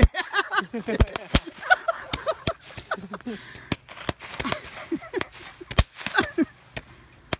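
Fireworks going off at close range: many sharp cracks and pops in quick, irregular succession.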